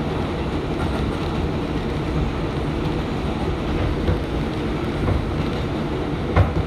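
Bombardier R142 subway car running along the track, heard from inside the car: a steady low rumble of wheels and running gear, with a single sharp knock near the end.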